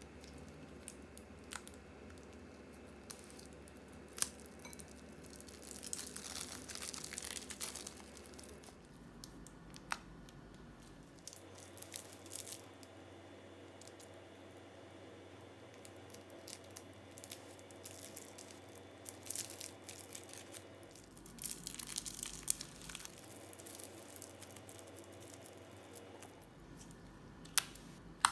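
Plastic piping bags being handled: crinkling and rustling with scattered small clicks and taps, growing denser for a couple of seconds twice, about six seconds in and again past the twenty-second mark.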